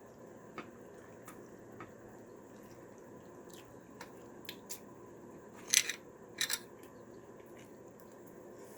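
Eating sounds at a meal: scattered small clicks and taps of utensils and food, with two louder short noises close together about six seconds in.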